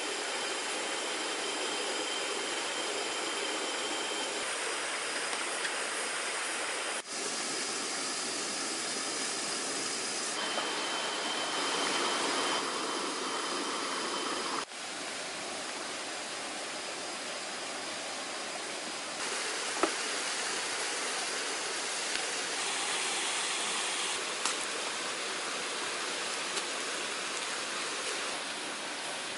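Shallow rocky stream flowing, a steady rush of running water. The sound changes abruptly twice, about seven seconds in and again halfway through.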